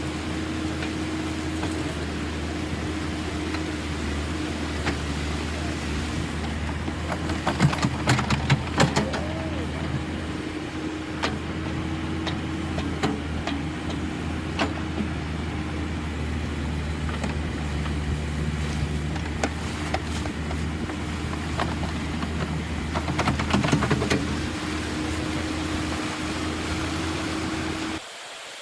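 Excavator engine running steadily with a constant hum, with bursts of knocks and clatter about eight seconds in and again near the end. The sound cuts off abruptly shortly before the end.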